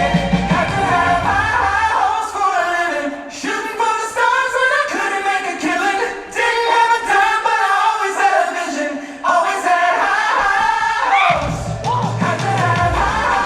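Show soundtrack with several voices singing over music.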